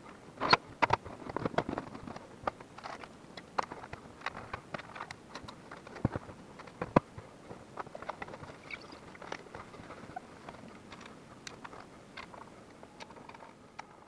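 Irregular clicks and knocks of hands handling a desktop PC case and fitting its glass side panel, busiest about half a second to two seconds in.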